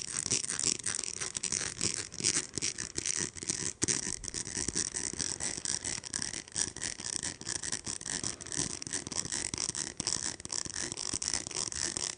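A plastic rainbow slinky handled close to a microphone, its coils clicking and rattling in a dense, unbroken run of small clicks.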